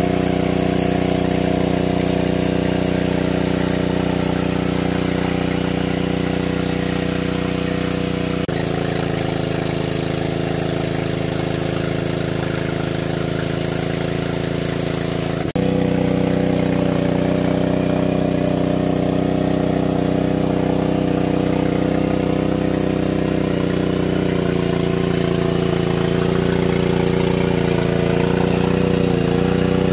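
Engine of a large-capacity water pump running steadily at a constant speed. Its tone changes abruptly twice.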